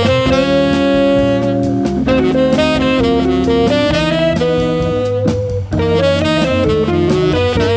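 Jazz combo playing: a tenor saxophone plays long held notes over Hammond organ and a drum kit.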